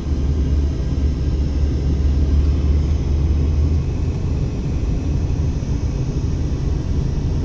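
Steady low road and engine rumble inside the cabin of a moving Mercedes-Benz car. The deepest part of the hum eases off about four seconds in.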